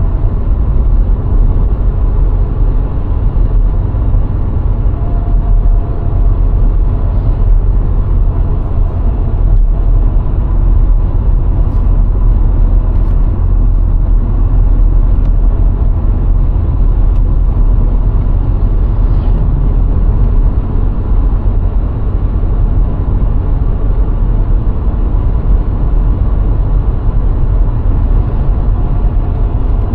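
Steady low rumble of a VW Golf IV 1.6 on the move: engine and tyre noise from the road, with a faint thin whine running through it.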